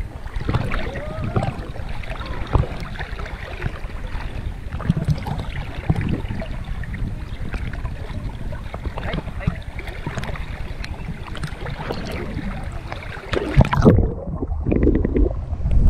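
Swimming-pool water splashing and lapping against a camera held at the surface as a toddler paddles in arm-band floats. About fourteen seconds in, the camera plunges under with a couple of loud sloshes, and the sound goes dull and muffled for the last two seconds.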